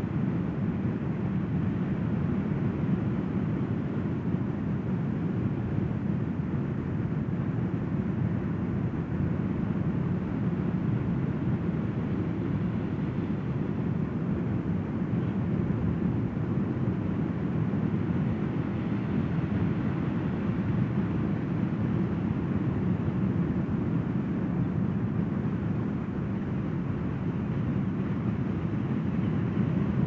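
Surf breaking on a sandy beach: a steady low roar with no distinct wave-by-wave surges.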